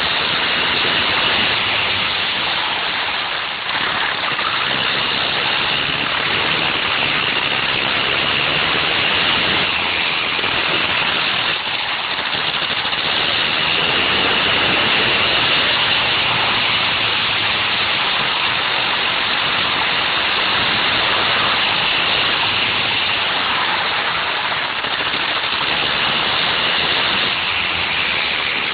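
Wankel rotary engine of a go-kart running at speed, heard onboard as a steady, loud, noisy drone with little rise and fall, mixed with wind rush.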